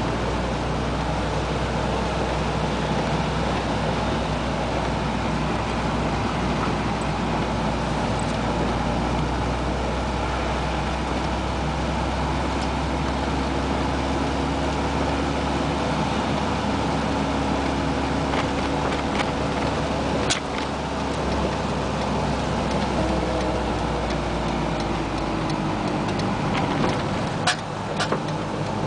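Inside the cabin of a 1988 Isuzu Trooper with its four-cylinder engine, driving on rain-wet pavement: steady engine drone and tyre hiss. Near the end the engine note drops as the truck slows, and a few sharp clicks sound.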